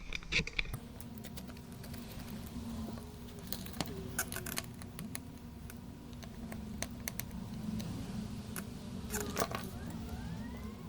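Scattered light clicks and taps of small tools and parts being handled on a repair bench, over a steady low hum.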